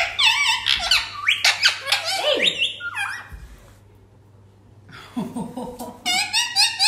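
Pet parrot making rapid chirps and squawks, its high-pitched calls sliding quickly up and down in pitch. It falls silent for a second or two about halfway through, then starts calling again.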